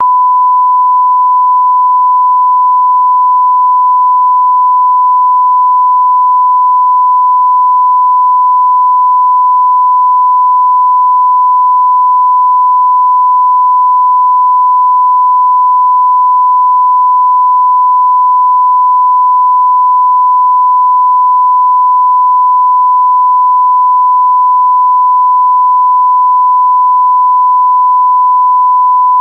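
Censorship bleep: a single steady 1 kHz sine tone held unbroken and loud throughout.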